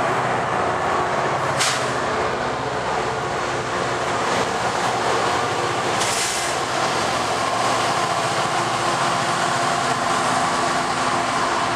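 NJ Transit PL42AC diesel locomotive pushing a train of multilevel coaches away, its engine working hard under steady wheel-on-rail noise. Two brief hisses, about a second and a half in and about six seconds in.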